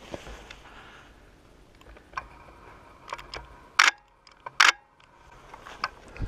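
Camera shutter on a telephoto-equipped camera firing twice, sharp and loud, a little under a second apart, with a few fainter clicks around it.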